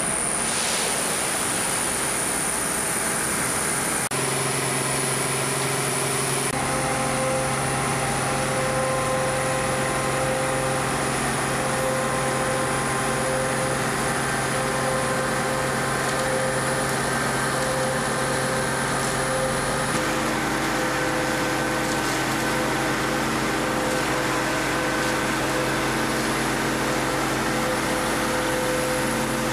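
Steady running of engines and machinery at a dry batch concrete plant while a truck mixer stands under the loading point, holding several steady humming tones. The mix of tones changes abruptly a few seconds in, again shortly after, and about two-thirds of the way through.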